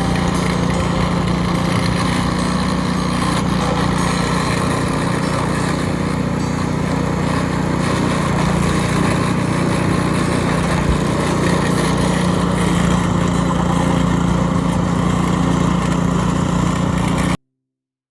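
Small petrol engine running steadily with a constant low hum, until it stops abruptly near the end.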